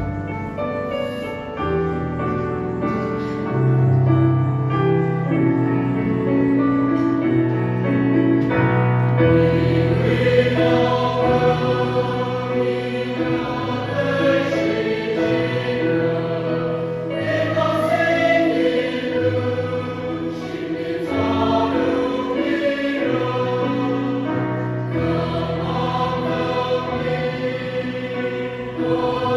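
Large mixed choir of men's and women's voices singing a hymn in harmony, with held chords that change every second or two.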